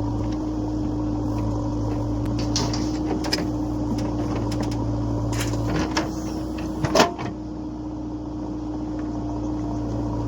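Diesel engine of a 2012-model JCB backhoe loader running steadily while it works, with short metallic clanks of the bucket and arm, the loudest a sharp knock about seven seconds in.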